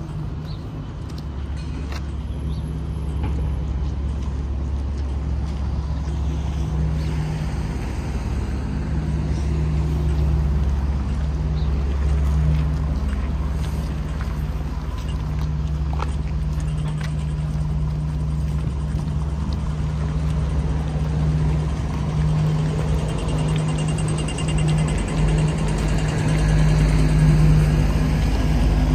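Street traffic, with a motor vehicle's engine running in a steady low hum that grows slowly louder toward the end.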